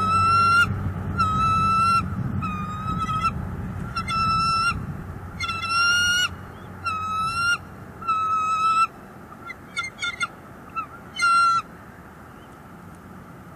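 A bird calling over and over: about nine drawn-out, even-pitched calls, one roughly every second and a half, with a few short broken notes near the end before they stop.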